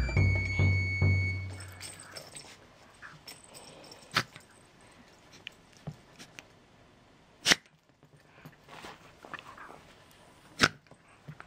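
Shiba Inu's short, sharp snorts through the nose, three loud ones about three seconds apart with softer snuffles between: a sneeze about to come that never quite does. Background music fades out in the first two seconds.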